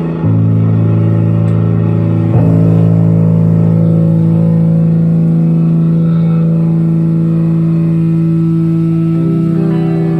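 Loud electric guitar chords played live through an amplifier, struck about a third of a second in and again at about two and a half seconds, each held and left ringing. The chord changes near the end.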